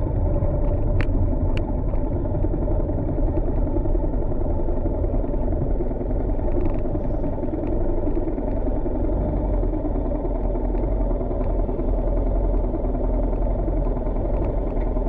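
Motorcycle engine running steadily at low revs, heard through a helmet-mounted action camera, with two short clicks about a second in.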